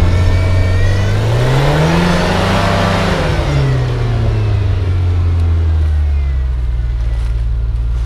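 A rock-crawling buggy's engine revs up and back down over a few seconds, then runs steadily at low revs.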